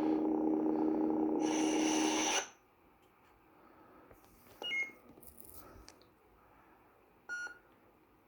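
Lightsaber soundboard (Nano V4) playing a steady blade hum through the hilt's small speaker, which swells briefly and then cuts off about two and a half seconds in as the blade shuts down. Two short electronic blips follow, a few seconds apart.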